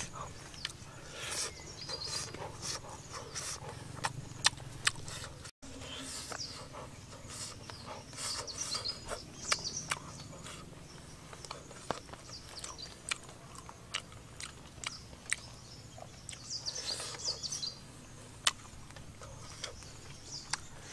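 A person eating grilled fish roe with open-mouthed chewing and lip smacking, with many sharp wet clicks throughout.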